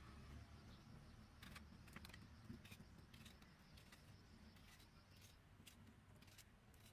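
Near silence, with faint, short clicks every second or so from a small knife cutting through a tomato held in the hand.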